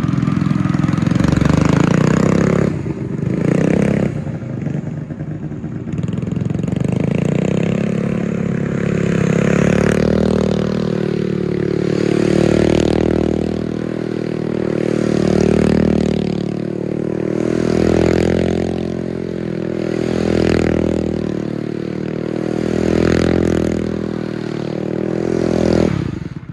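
Small engine of a tracked stand-up mini snow sled revving hard as it spins in tight circles on snow. The sound swells and fades about every two and a half seconds as the sled turns, with a brief dip about three seconds in.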